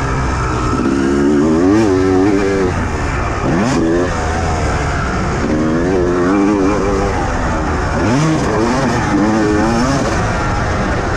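Motocross bike engine heard on board, its revs climbing and dropping over and over as the rider works the throttle around the dirt track, over a constant rush of wind and ground noise.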